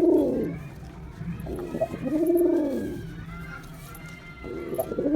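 Male domestic pigeon cooing: three arching coos, each rising then falling in pitch over about a second, about two seconds apart, the last starting near the end.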